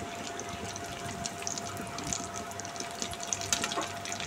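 Bread-crumbed potato and cheese donuts deep-frying in hot oil on a high gas flame: a steady sizzle with many small crackles and pops.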